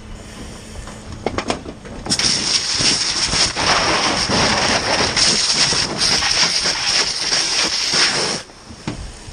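Fire hose nozzle opened about two seconds in, its water stream hissing steadily onto burning debris with steam rising, then shut off abruptly near the end. A few short knocks come before the spray.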